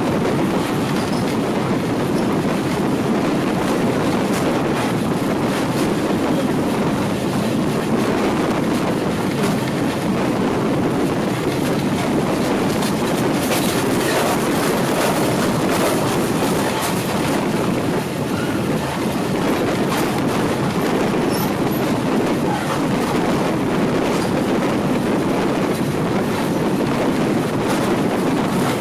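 TAZARA passenger train running steadily, heard from inside a carriage with the window open: the wheels running on the rails, with a few faint clicks here and there.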